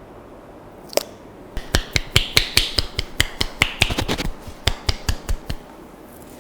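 Cracking massage by a barber's hands: one sharp crack, then a fast run of sharp snaps and cracks, several a second, that stops about a second before the end.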